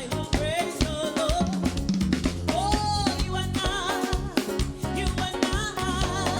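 Upbeat praise-and-worship music with a drum kit keeping a steady beat on snare and bass drum, with rimshots, under a melody line whose notes bend and slide.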